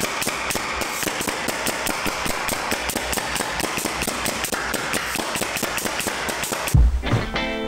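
Pneumatic nail gun firing a rapid, even string of sharp shots, driving nails into a wooden stud frame. A heavy thump comes near the end.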